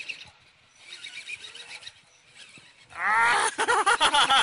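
Fairly quiet for about three seconds, then loud, drawn-out wordless yelling and whooping from onlookers cheering on a tug-of-war.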